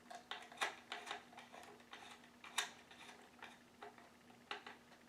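Light, irregular clicks and taps of a wire and screwdriver being worked into a screw terminal on a fire alarm's plastic housing, with two sharper clicks, about half a second and two and a half seconds in.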